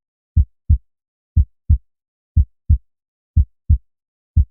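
Heartbeat as heard through a stethoscope over the aortic area (second intercostal space, right sternal border): paired low 'lub-dub' thumps, the first and second heart sounds, about once a second with nothing heard between them. About four and a half beats.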